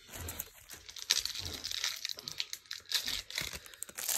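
Foil trading card pack wrapper crinkling and crackling in the hands as it is picked up and opened.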